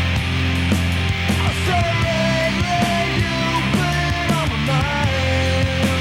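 Loud rock music with electric guitar, bass and drums, and a sliding lead guitar line in the middle.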